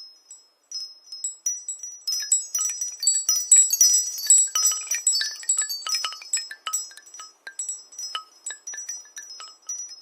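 Phone ringtone made of many short, high chiming notes at an uneven, scattered pace, like a wind chime. The notes are sparse at first, densest from about two to six seconds in, and thin out toward the end.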